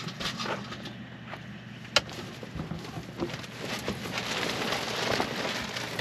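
Crinkly rustling of an insulating pop-top quilt and plastic sheeting being handled, with small scattered clicks and one sharp click about two seconds in. The rustling gets thicker in the second half.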